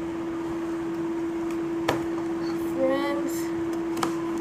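Cardboard box being handled and opened by hand: a sharp tap about two seconds in and a lighter one near the end, over a steady hum.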